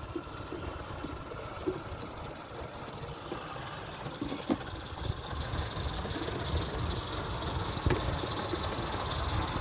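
Roundhouse Engineering Taliesin live-steam model locomotive running under steam, a steady hiss of escaping steam that grows louder over the last several seconds as the engine comes closer.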